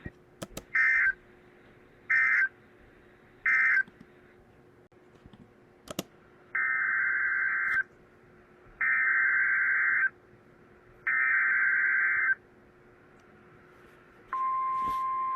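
Emergency Alert System SAME data bursts: three short, harsh electronic bursts about a second and a half apart that end one alert, then three longer bursts of the next alert's header. About fourteen seconds in, the steady single-pitched NOAA Weather Radio 1050 Hz warning tone begins.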